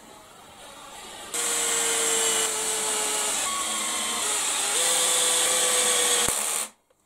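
Power drill driving screws through a metal lathe faceplate into a log. The motor starts about a second in and runs steadily, its pitch stepping up and down a few times, then stops abruptly near the end.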